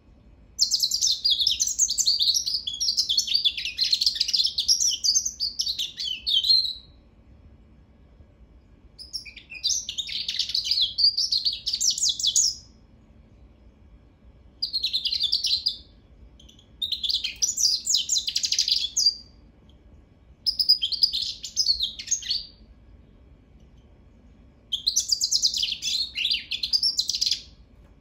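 Hybrid goldfinch × African canary singing: six phrases of fast, high twittering song, the first about six seconds long and the rest two to four seconds, with short pauses between them.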